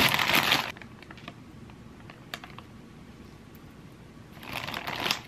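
Plastic poly mailer bag crinkling and tearing as it is pulled open by hand: a loud rustling burst at the start, a few light clicks and rustles, then another crinkling burst near the end.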